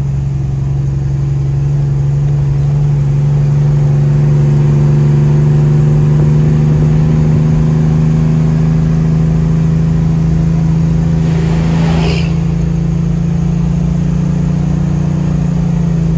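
Tractor-trailer truck's diesel engine running steadily under way, heard from inside the cab as one strong low drone, swelling slightly in the first few seconds. A brief higher-pitched noise cuts through about three-quarters of the way in.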